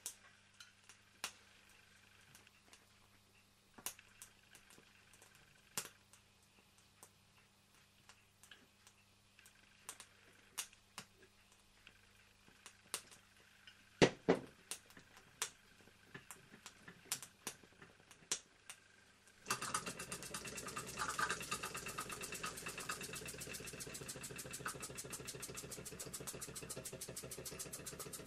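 Scattered metallic clicks and knocks as the small model steam traction engine is handled and readied. About two-thirds of the way in, the engine is heard running with a rapid, even exhaust beat and a hiss of steam. Its slightly misaligned ports let a little steam escape on each exhaust stroke.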